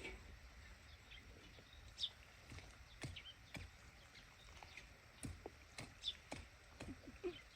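Faint, scattered small knocks and rustles of hands working soil and plastic seedling pots while planting, at irregular intervals, with a few short high chirps.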